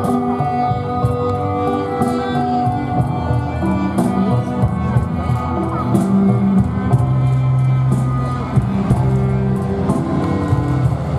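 Music with held notes and a steady beat.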